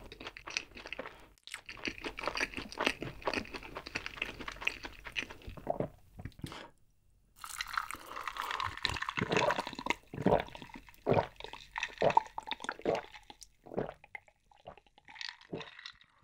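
Close-miked chewing of a crunchy black choux pastry, then, after a brief pause, several gulps of an iced drink swallowed from a glass jar.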